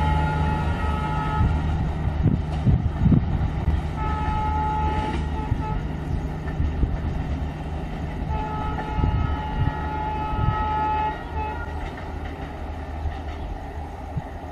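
Two-note locomotive horn sounding three times: once ending about a second in, again about four seconds in, and a longer blast of about two and a half seconds past the middle. Under it runs the steady low rumble of a departing Indian Railways passenger train.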